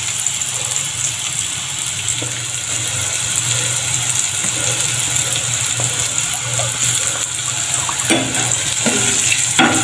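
Yardlong beans (sitaw) sautéing in a frying pan, making a steady sizzling hiss.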